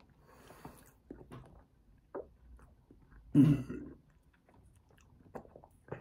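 Close-up mouth sounds of a person sipping a milkshake through a straw and swallowing: soft short sounds, with one louder, deeper throat sound about three and a half seconds in.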